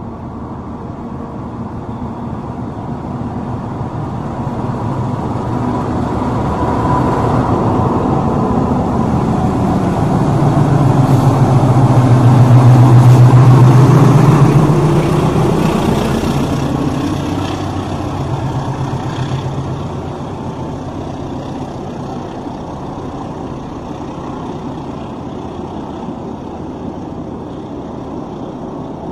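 Diesel-hauled intercity passenger train pulling out of the station and passing. The locomotive's engine grows louder to a peak about halfway through, then fades to the steady rumble of the coaches rolling past.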